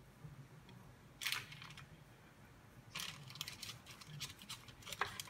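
Soft, short scraping and crinkling handling sounds from a spoon pressing filling into hollowed zucchini halves on parchment paper on a baking tray. One comes about a second in, a cluster follows around three seconds, and a sharper one comes near the end.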